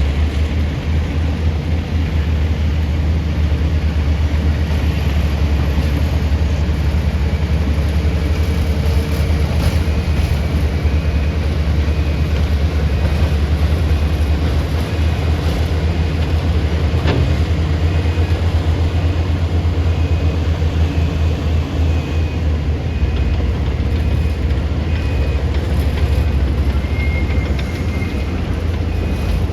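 Excavator's diesel engine running steadily under work, a deep continuous drone. From about a third of the way in, a faint high beep repeats at regular intervals, like a machine's warning alarm.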